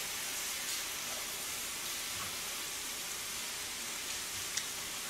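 Sliced pork belly and enoki mushrooms sizzling in a frying pan: a steady hiss. A faint tap of the metal tongs against the pan comes about four and a half seconds in.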